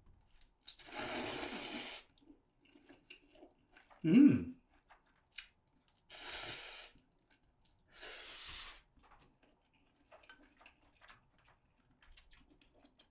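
A person slurping spicy stir-fried instant noodles in three long slurps, with a short, loud vocal sound falling in pitch about four seconds in, and small chewing clicks near the end.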